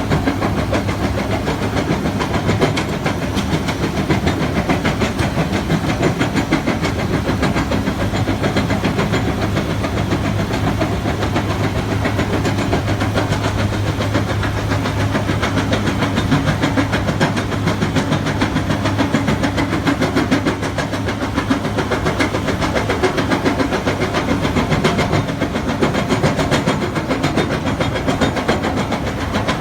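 A heavy earthmoving machine's engine runs steadily under load while it works a hydraulic bucket crusher, giving a constant low hum with a dense, continuous clatter over it.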